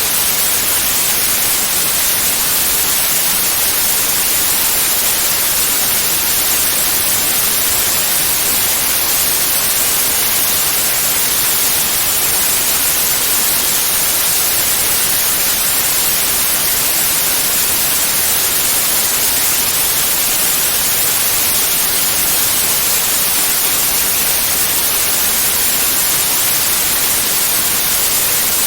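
Generated white noise: a steady, bright hiss spread evenly across all pitches, with no swells, tones or breaks.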